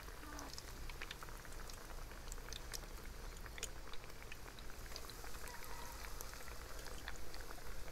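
Breadfruit slices frying in hot oil in a pan: a steady sizzle dotted with many small scattered pops and crackles.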